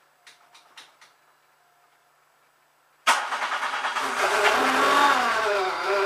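A few faint clicks, then about three seconds in a supercharged 1.8-litre 8-valve VW G60 four-cylinder fires up abruptly; its revs wander up and down for a moment, then settle into a steady idle.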